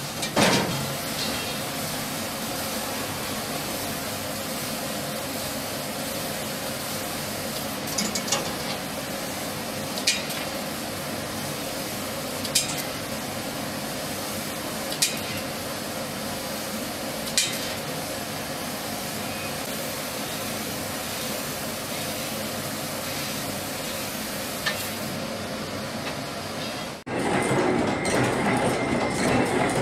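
Laser cutting a metal tube: a steady sizzling hiss, with a sharp tick every two to three seconds. Near the end it cuts to a louder rattling of a chain-making machine, with a steady high whine.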